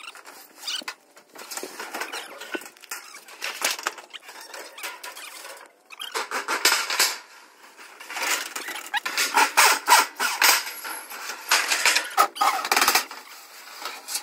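Corrugated metal roofing sheets scraping and clattering as they are pulled off a roof and slid down to the ground, in irregular bursts that come thickest from about six to eleven seconds in.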